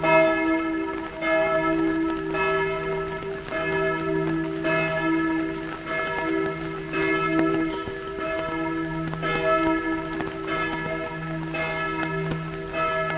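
Church bells ringing in a steady peal, with a stroke about every second. Several bell tones overlap, and a low hum lingers between the strokes.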